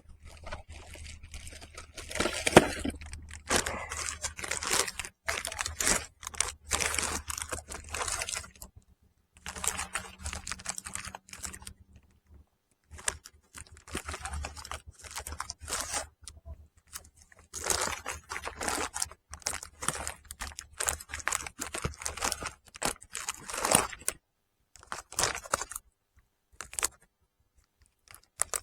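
Close-up handling noise: repeated crinkling, crunching and scraping in uneven bursts with short gaps, over a faint low steady hum that stops near the end.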